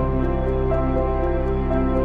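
Background music: soft new-age instrumental with sustained notes over a steady low bass and a light regular tick.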